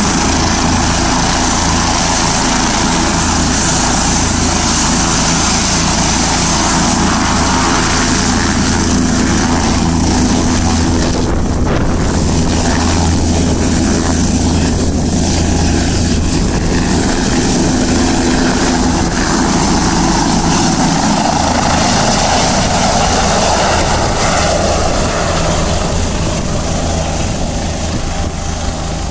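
Light single-engine helicopter running at full rotor speed, lifting off and flying away: a loud, steady rotor and turbine noise that grows fainter over the last few seconds as it departs.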